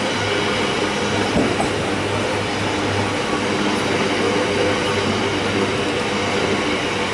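Drax biomass hopper wagons of a freight train rolling past: a steady rumble of steel wheels on rail with a faint hum, and a single sharp knock about a second and a half in.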